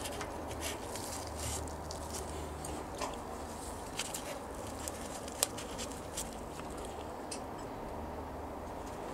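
Light metallic clicks and taps as cam followers are handled and slid into their bores in the Rover V8's aluminium block. The sharpest click comes about five and a half seconds in, over a steady low hum.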